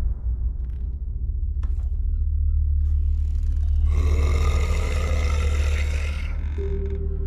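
Dark horror-intro sound design: a deep steady rumbling drone, with a hissing swell rising in about four seconds in and fading near the end, where a short held tone sounds.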